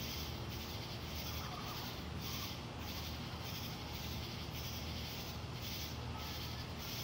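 A chorus of night insects calling in a steady rhythm, about three high-pitched pulses a second, over a low steady hum.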